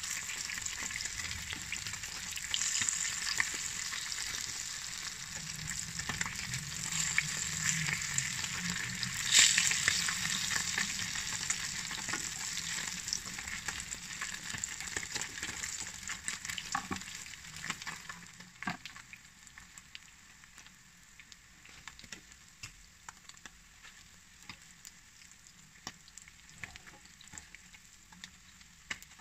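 Whole sardines sizzling in hot oil in a frying pan, a steady dense hiss with scattered clicks and one sharp knock about a third of the way in. About two-thirds of the way through the sizzle dies down to a faint hiss with occasional crackles.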